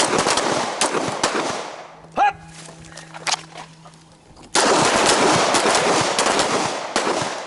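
Handgun gunfire from a firing line, many shots in quick succession overlapping with their echoes, in two strings: one dying away about two seconds in, the next starting abruptly about four and a half seconds in.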